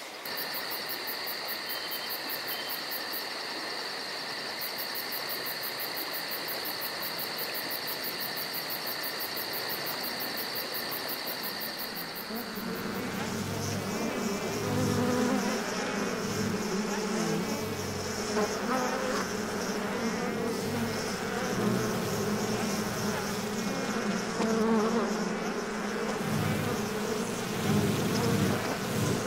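Insects: for the first part, a steady high-pitched insect trill with a fast ticking shimmer above it. About halfway through, a louder, close buzzing of flying insects takes over, wavering up and down in pitch.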